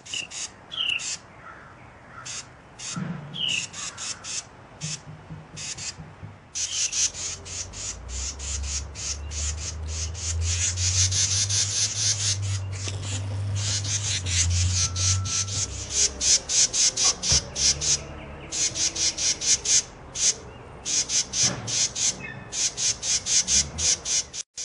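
Carolina wrens giving their harsh, rapid scolding chatter in long runs, alarm calls at an intruder near the nest, with a few short falling notes in the first seconds. A low rumble sits underneath for several seconds in the middle.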